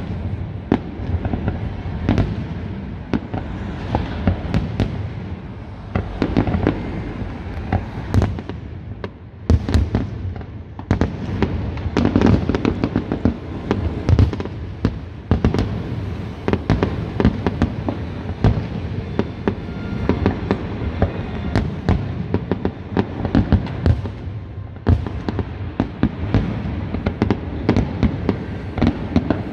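Aerial fireworks display going off: a continuous run of booms and sharp cracks, several a second, with a brief lull about nine seconds in before the bangs pick up again.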